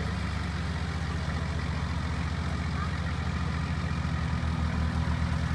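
Off-road 4x4's engine idling steadily with a low, even hum.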